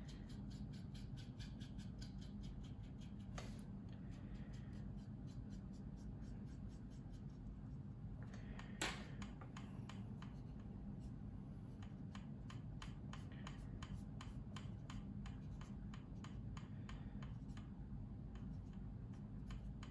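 Fine paintbrush and then a cotton swab rubbing in quick, faint strokes over the plastic surface of a scale model aircraft's wing, blending and lifting dried oil paint. One sharper click about nine seconds in.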